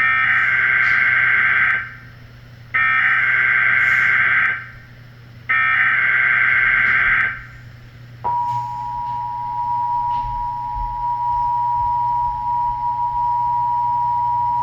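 Emergency Alert System header for a Required Monthly Test: three bursts of SAME digital data tones, each a fast warbling tone about two seconds long with short pauses between. About eight seconds in, the steady two-tone EAS attention signal begins and holds.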